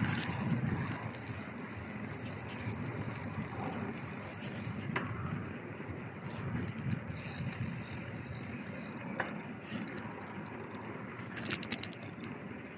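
Bicycle being ridden: a steady low rumble of tyres and wind, with light rattling from the bike and a quick run of rattling clicks near the end.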